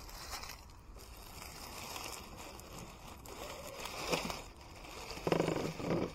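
Element Sendero HD 1/10-scale RC crawler with a 16-turn Reedy brushed motor, its motor and drivetrain whirring in short bursts. The loudest burst lasts under a second near the end.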